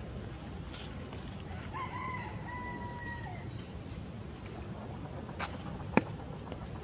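A rooster crowing once, a drawn-out call about two seconds in that drops in pitch at the end. A sharp click comes near the end.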